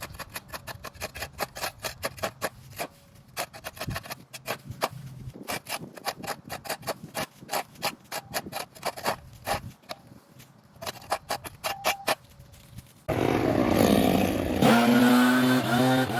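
A run of quick, irregular clicks and knocks, then about thirteen seconds in a small engine starts abruptly and runs loudly and steadily.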